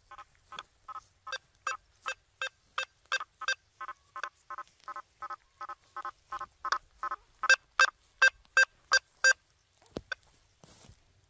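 Quest V80 metal detector giving short pitched target beeps, about three a second, as the 9-inch coil sweeps back and forth over a nailboard. The beeps stop about nine and a half seconds in, followed by a sharp knock and a brief rustle.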